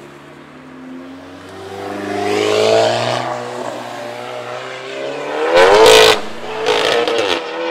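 Tuned cars accelerating hard past one after another, each engine note climbing as it revs up. The loudest car goes by close about six seconds in, with a second loud one just after, the pitch dropping as each passes.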